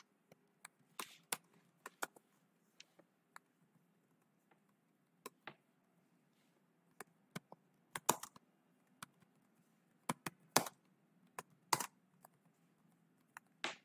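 Computer keyboard being typed on: scattered single keystrokes, irregular and with short pauses between them, some clacks louder than others.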